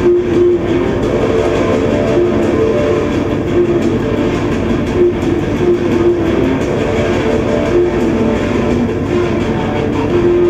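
Guitar-led music, with electric guitar, playing steadily from a film soundtrack through room loudspeakers.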